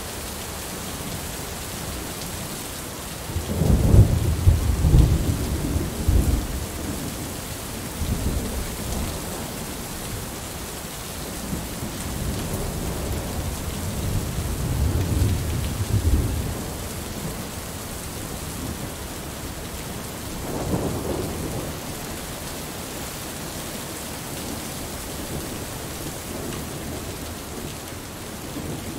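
Heavy rain falling steadily, with rolling thunder: a loud rumble a few seconds in, another building and fading in the middle, and a shorter, fainter one past the two-thirds mark.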